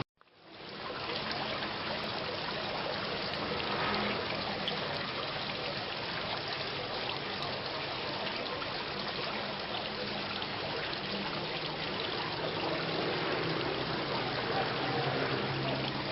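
Steady rain falling, an even hiss of raindrops. It cuts out briefly at the very start and swells back in within about a second.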